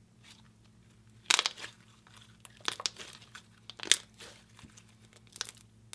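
Pearly chrome slime squeezed and pressed between the fingers, crackling and popping in short, irregular bursts as air bubbles in it burst. The loudest burst comes about a second in.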